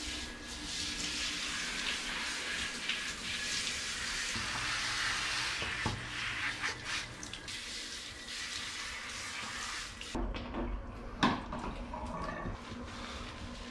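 Handheld bathtub shower head spraying water onto a Maltese dog's coat: a steady hiss of running water that stops abruptly about ten seconds in. After it, a few knocks, one sharp knock about a second later.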